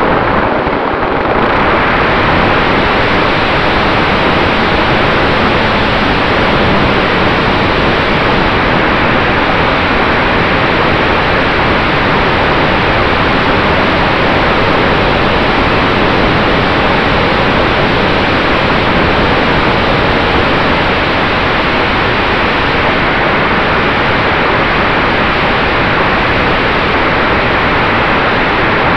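Steady loud rush of wind over a camera riding on a flying radio-controlled P-51 model airplane, with a faint steady motor or propeller tone underneath. The rush dips briefly about a second in.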